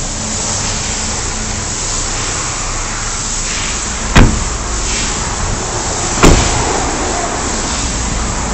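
Two car doors slammed shut, one about four seconds in and another about two seconds later, over a steady background hiss.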